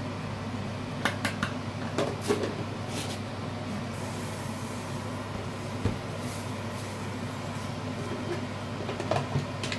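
Steady low hum, with a few light clicks and rustles as a plastic container lid and plastic bags are handled.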